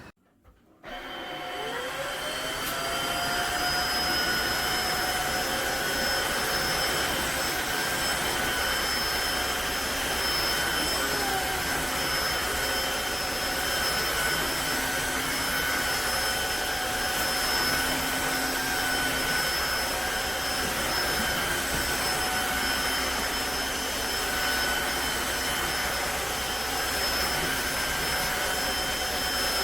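Tineco iFLOOR 3 cordless wet-dry vacuum's motor starting about a second in with a rising whine that settles into a steady running drone with a high whistle on top.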